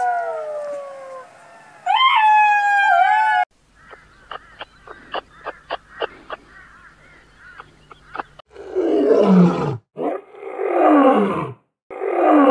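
A jackal's wailing calls, bending and falling in pitch, give way about three seconds in to a run of soft clicks from a kangaroo. A lion then roars three times, each roar sliding down in pitch.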